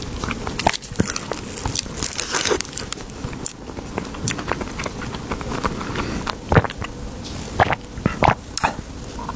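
Close-miked eating: crunchy bites and chewing, with irregular crackling snaps. A few louder snaps come in the second half.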